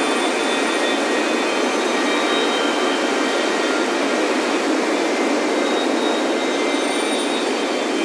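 Steady, continuous roar of ocean surf breaking on a beach, with wind chimes ringing over it in several high, lingering tones.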